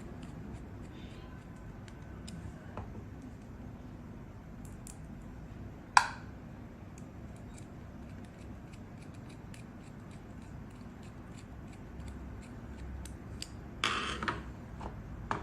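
Small screwdriver driving the tiny screws back into a lock pick decoder's metal shell: faint, scattered metal ticks and scrapes, with one sharp click about six seconds in and a brief louder scrape near the end.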